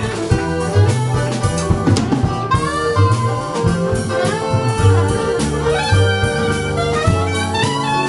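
Band playing an instrumental passage: a saxophone lead over drum kit and bass.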